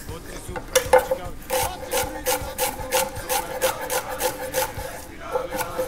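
Chef's knife slicing an onion into thin slices on a wooden cutting board. The blade strikes the board in a steady run of cuts, about three a second.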